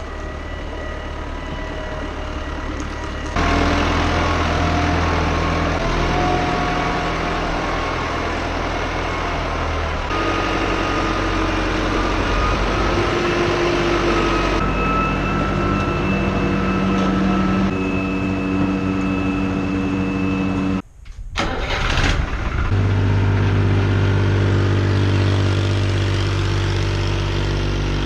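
Tractor engine running steadily. Its pitch and loudness change abruptly several times, and the sound drops out briefly about 21 seconds in.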